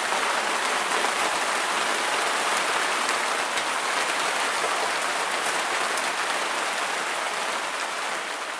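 Steady heavy rain falling, an even hiss of drops that starts to fade near the end.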